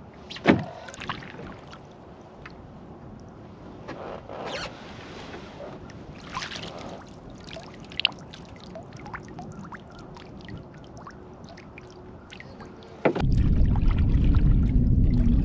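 Double-bladed paddle dipping into lake water, a splash and drip with each stroke every second or two. About thirteen seconds in, a sudden loud, steady low rumble takes over.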